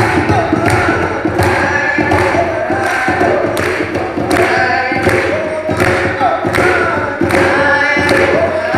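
Voices singing together in a chant-like song over a steady drum beat of about two strokes a second.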